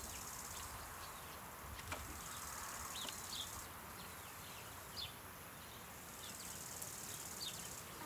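Summer garden ambience: a steady high hiss of insects with scattered short bird chirps and a couple of faint knocks.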